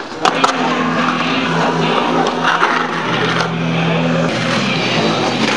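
Skateboard wheels rolling and carving around a concrete bowl, a continuous grinding roar, with a few sharp clacks of the board dropping in off the coping just after the start.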